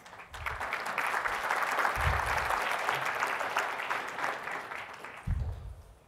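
Audience applauding: dense clapping that builds within the first second and fades out near the end, with a few dull low thumps.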